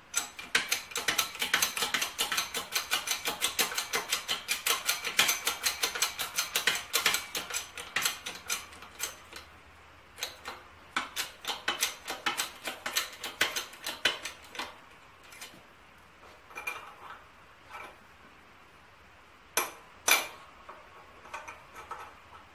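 Hydraulic floor press being pumped to push the camshaft out of an antique engine's cam gear: a fast run of light metallic clicks, about four a second. After about fifteen seconds the clicks thin out to scattered ones, with two sharper clicks near the end.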